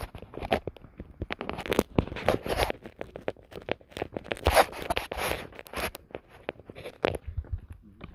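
Handling noise: a fast, irregular run of rustling and scraping right against the handheld camera's microphone as it is carried along.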